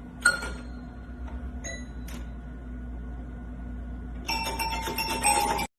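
A bell struck once with a sharp ding that rings on for several seconds, then two lighter dings. Later comes a rapid jangle of ringing tones for over a second, which cuts off suddenly.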